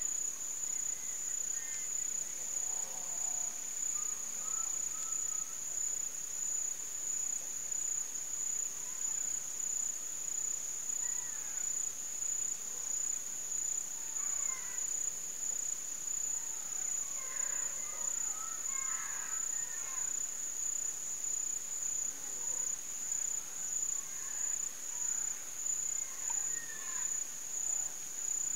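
Steady, high-pitched trill of an insect chorus, unbroken throughout, with faint short chirps scattered over it in the middle and near the end.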